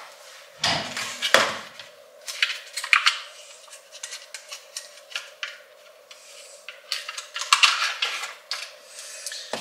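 Handling noises from a plastic skyr pot: a couple of knocks on the worktop, then intermittent crinkling and scraping as its lid is worked open, over a faint steady hum.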